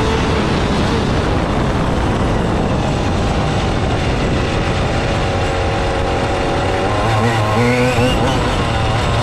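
Onboard sound of a fifth-scale RC rally car driving on a road: steady wind and tyre noise with the car's motor running. About seven seconds in, its note wavers up and down in pitch as the throttle is worked.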